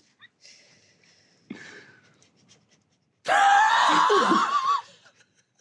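A man's loud, high-pitched laugh breaks out about three seconds in and lasts a second and a half. Before it come a few faint, stifled snickers.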